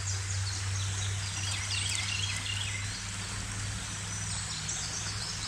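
Outdoor streamside ambience: small birds chirping in quick, repeated falling notes over a steady rush of flowing creek water and a low steady hum.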